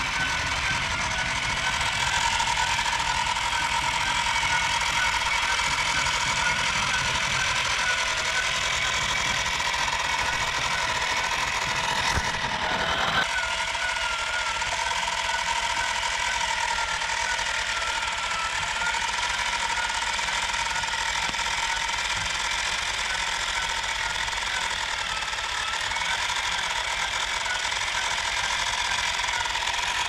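Small motor of a bamboo toy combine harvester running steadily, a whirring whine that wavers slightly in pitch, along with the mechanical noise of its gears and belt drive. There is a brief knock and pitch wobble about twelve seconds in.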